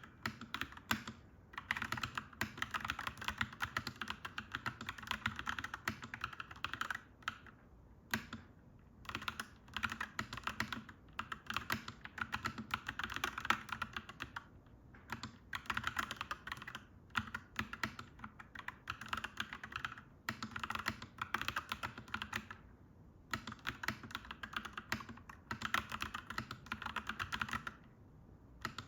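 Clacky mechanical keyboard being typed on steadily: fast runs of key clacks in bursts of a few seconds, with short pauses between them.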